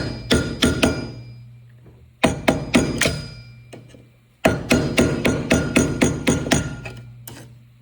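Quick hammer taps on metal, about four a second in three runs, each strike ringing. This is the locking clip on the ATV's brake rotor bolts being tapped back with a flathead screwdriver to clear room for a socket.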